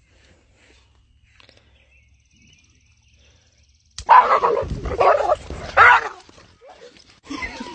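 A dog yelping and barking in sudden loud bursts, starting about four seconds in after a few seconds of near quiet. These are the yelps of a dog jolted by an electric fence.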